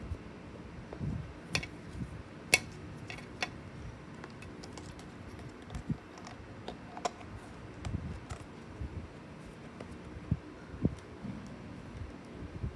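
Hands handling small toys and their packaging: scattered clicks and taps, the sharpest about two and a half seconds in, with soft low bumps of handling between them.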